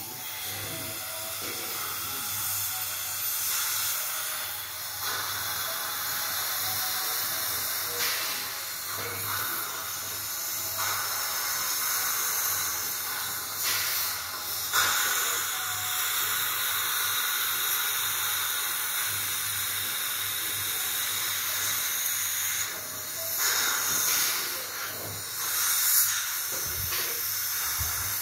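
Dental suction hose hissing steadily as it draws air and water from a child's mouth, swelling and dipping a few times as the tip moves.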